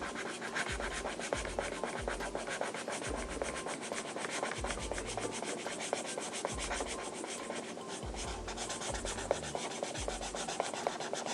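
Rapid back-and-forth colouring strokes of a drawing tool scratching over paper, filling in a large area of the drawing black. The scratching runs continuously.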